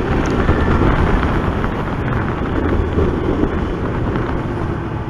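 Yamaha FZS V3 motorcycle riding along at a steady pace: a steady rush of wind on the microphone over the low drone of its single-cylinder engine and road noise.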